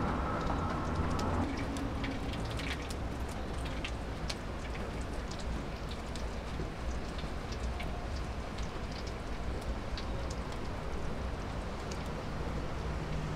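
Wood fire crackling in a small metal stove: irregular sharp snaps over a steady hiss.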